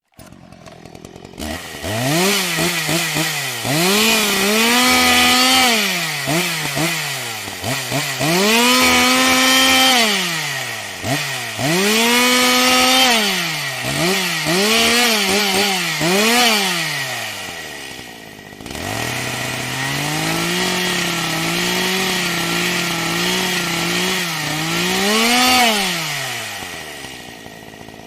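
Chainsaw engine revving up and down over and over, several times held briefly at high revs. About two-thirds through it drops almost to idle, then runs steadier at a moderate speed before one last rev and a fall-off near the end.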